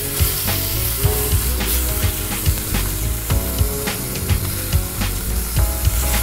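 Pork shoulder steaks sizzling steadily as they sear in a hot steel disc pan over a wood fire, with scattered sharp clicks as tongs place and turn the meat on the metal.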